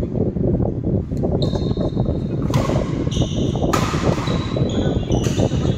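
Badminton rackets striking a shuttlecock in a rally: about four sharp hits roughly a second apart, each ringing briefly. A steady low rumble runs underneath.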